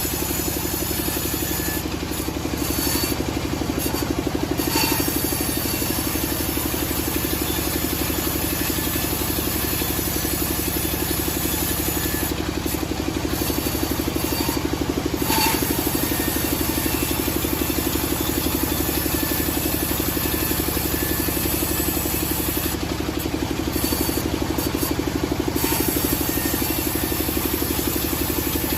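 Sawmill machinery's engine running steadily at an even pitch, with no cut or change in load.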